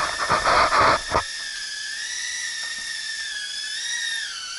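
Floureon FX10 micro quadcopter's tiny motors and propellers whining in flight, the high-pitched whine wavering up and down as the throttle changes, dipping near the end. Loud rustling handling noise on the microphone in the first second.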